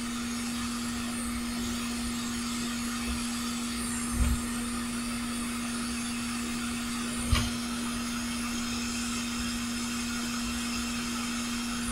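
Hot air rework station blowing on a circuit board to desolder a surface-mount part: a steady fan hum with air hiss, and two faint knocks about four and seven seconds in.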